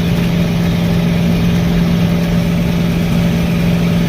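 Farm machine's diesel engine running steadily under way, a loud even drone that "purrs".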